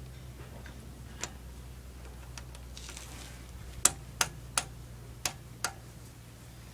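Sharp metallic clicks from hand tools on a wheel during a tyre change: a faint click, then five sharp ones in quick, uneven succession past the middle, over a steady low hum.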